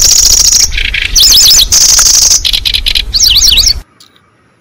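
Recorded lure song of the kecici belalang, a small bird, played very loud: high, rapid buzzing trills alternating with series of sharp up-and-down chirping notes, cutting off abruptly about four seconds in.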